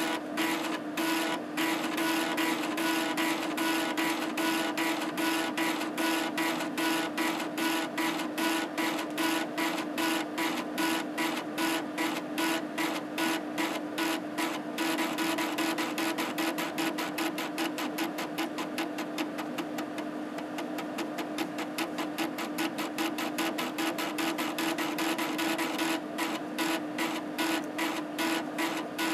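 Head stepper motor of an Epson SD-800's 3.5-inch floppy drive seeking back and forth between the outer and inner tracks in a funnel seek test, a buzzing chatter broken by short pauses several times a second. Around the middle the stepping runs almost unbroken, and the pauses come back near the end.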